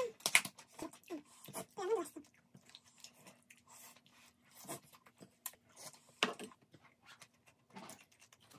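Close-up eating sounds: chewing and smacking, with short sharp clicks of a metal spoon and chopsticks against a small stainless steel bowl. A faint steady hum runs underneath.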